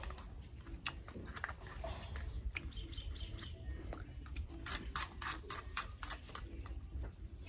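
Metal spoon clicking and scraping in a plastic yogurt cup, a run of light clicks that is busiest about five seconds in, with quiet mouth sounds of eating.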